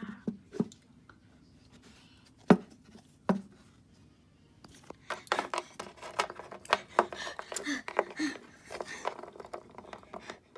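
Small plastic toy figures knocking on a hard tabletop as they are handled: a few separate sharp knocks, the loudest about two and a half seconds in, then from about five seconds a busy run of quick light taps and clicks.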